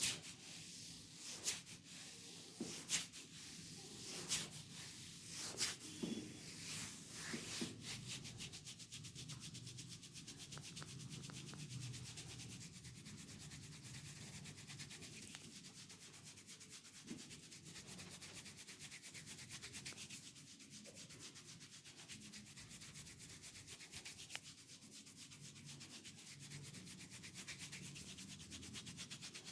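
Hands rubbing and working over skin and hair in a massage. For about the first eight seconds there is a sharp tap or slap about every second and a half, then fast, continuous rubbing strokes.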